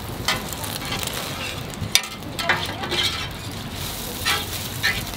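Egg rolls sizzling on a hot flat-top griddle, with a metal spatula scraping and tapping across the steel plate in short strokes and one sharp click about two seconds in.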